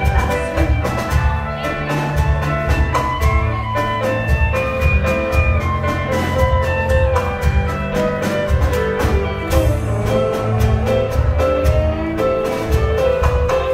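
A live band playing a contra dance tune: a melody line over a steady, driving beat.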